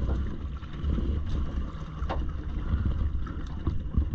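Wind buffeting the microphone in an uneven low rumble, with a single short knock about two seconds in.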